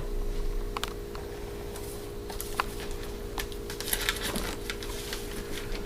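Light scattered clicks and rustles of 45 rpm records and their sleeves being handled, over a steady low electrical hum.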